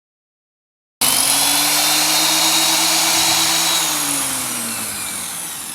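A power tool's motor running at full speed, cutting in suddenly about a second in, then switched off and winding down with a falling whine and fading level.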